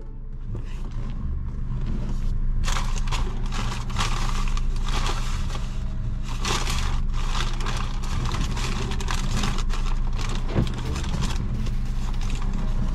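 Paper takeout bag rustling and crinkling as hands dig through it, starting about two seconds in, over the low steady hum of the car.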